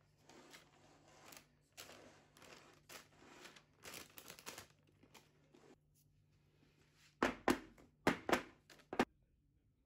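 Spatula scraping and smoothing cake batter against the parchment paper lining a metal springform pan, with soft rustling. About seven seconds in come several sharp knocks as the pan is tapped down on the table to knock the air bubbles out of the batter.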